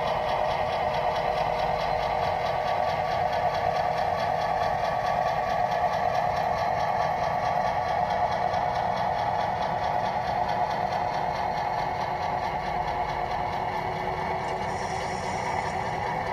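Model railroad boxcars rolling slowly along the track in a switching move: a steady whirring clatter of wheels and drive.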